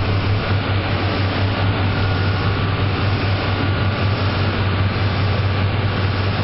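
Fishing boat's engines running steadily at cruising speed, a deep even drone under the rush of wake water and wind.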